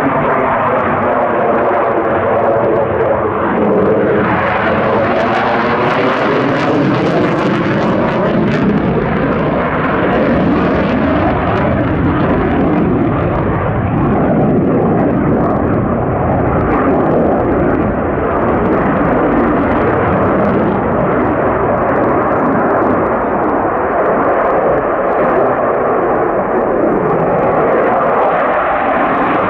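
A fixed-wing aircraft passing low overhead, its engine noise loud and continuous. For the first several seconds the noise sweeps and phases as the plane goes by.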